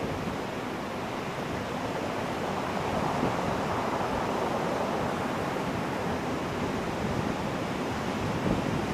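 Ocean surf breaking and washing up a beach: a steady rushing noise that swells a few seconds in as a wave comes in.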